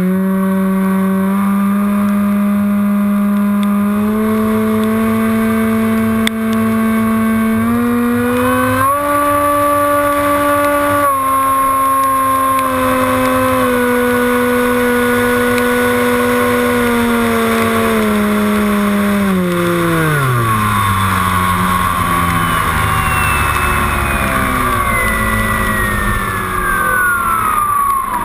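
Onboard sound of a HobbyKing Bixler RC glider's electric motor and propeller running at steady throttle. The pitch steps up about a third of the way in, eases back, then falls away as the throttle is cut about two-thirds in, and a high whine slides down in pitch through the last several seconds.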